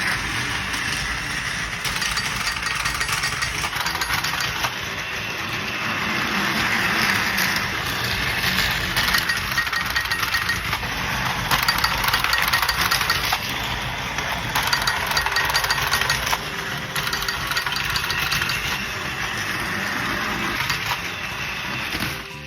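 Battery-powered Plarail toy train running on plastic track: a continuous small-motor whir with fine wheel clicking, swelling and fading in loudness.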